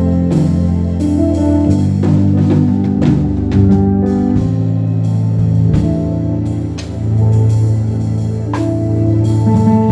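Instrumental music: sustained pitched tones with plucked-string notes and occasional percussive hits.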